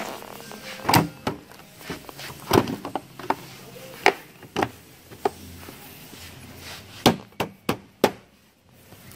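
Hard plastic knocks and clicks from a Toyota Prius rear brake light lens assembly being handled and worked into place: about a dozen sharp taps at uneven intervals, with a quick run of four near the end.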